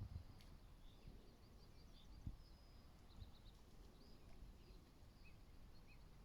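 Faint bird chirps and a quick run of short high notes over quiet outdoor ambience, with one soft knock about two seconds in.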